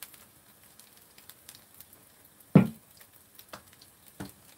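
Kimchi pancake frying in oil in a pan, a faint steady sizzle, with utensil clicks from the batter bowl and one sharp knock about two and a half seconds in.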